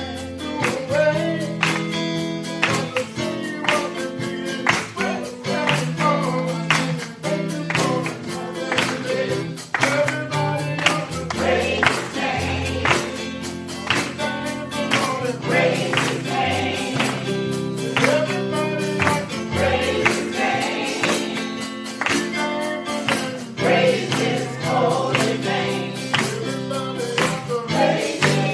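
Gospel choir singing with band accompaniment: bass notes under the voices and a steady percussion beat.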